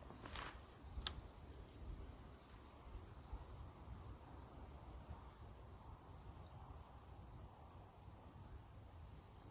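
Quiet riverside ambience: thin, high-pitched chirps and a few quick falling trills from a small animal, repeated about once a second, over a low wind rumble on the microphone. One sharp click about a second in.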